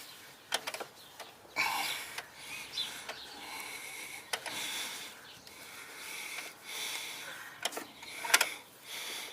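Microfiber cloth rubbing and wiping over a dirty car part in repeated strokes, with a few light clicks and knocks of the part being handled, the loudest near the end.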